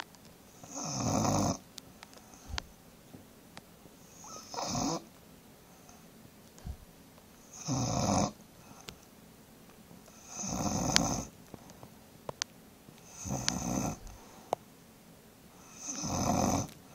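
A bulldog snoring: six loud snores, each about a second long, coming roughly every three seconds.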